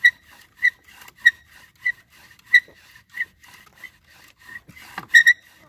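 Bow drill in use: the wooden spindle squeaks high in the fireboard at each bow stroke, about one and a half strokes a second, with a quick burst of strokes near the end.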